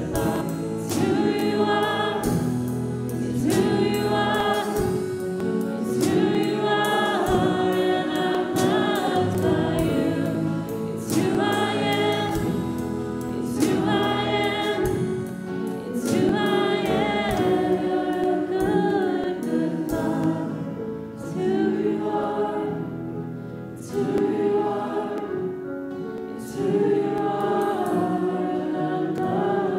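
Church worship team singing a contemporary worship song together, with instrumental accompaniment; the music grows softer for a few seconds a little past the middle.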